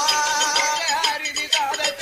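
Tamil villu pattu bow-song music: a voice singing a wavering, ornamented melodic line over light percussion strokes.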